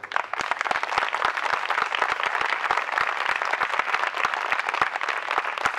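Crowd applauding: many people clapping together, starting suddenly and keeping up a steady rain of claps.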